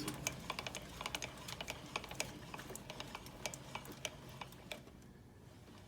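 Light, rapid, irregular clicking of a Grizzly lathe's newly cut carriage pinion gear meshing along the rack, running pretty smooth. The clicks fade out about four and a half seconds in.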